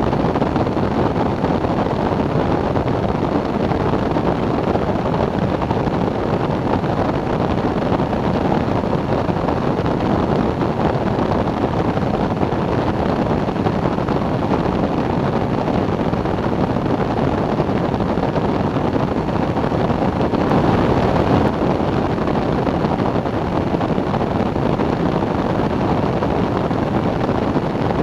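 Weight-shift microlight trike in cruise flight at about 70 mph: the steady drone of its engine and pusher propeller mixed with a constant rush of wind over the microphone, swelling slightly about two-thirds of the way through.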